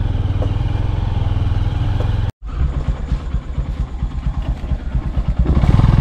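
A small motorcycle engine running steadily under way. About two seconds in it cuts off abruptly, and an uneven low chugging rumble follows that gets louder near the end.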